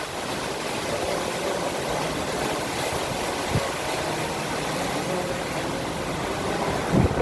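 Heavy rain and strong wind: a steady rushing noise, with a low thump about three and a half seconds in and a louder one near the end.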